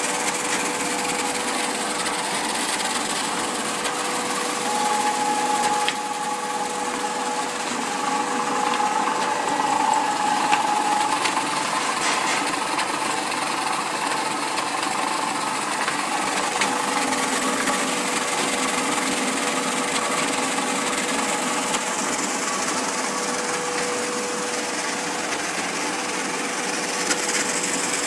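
Foliant Gemini C400A automatic laminator running, feeding sheets through: a steady mechanical whir with a constant hum. About five seconds in, a higher whine joins for several seconds.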